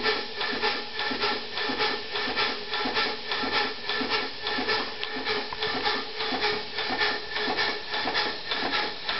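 3-inch scale Burrell traction engine model running on compressed air instead of steam, its exhaust puffing in an even rhythm of about four to five beats a second.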